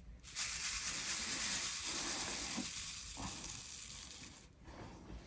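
Many small square crystal diamond-painting drills sliding and rattling together in a plastic drill tray: a steady hiss-like patter that fades out near the end, with a couple of light knocks about halfway through.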